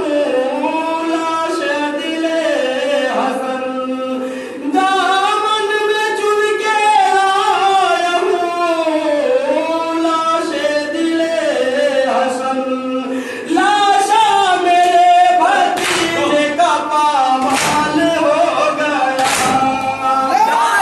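Male voices chanting a nauha, an Urdu Shia mourning lament, unaccompanied into a microphone, growing louder past the middle. Near the end, sharp chest-beating (matam) slaps land about every second and a half over the chant.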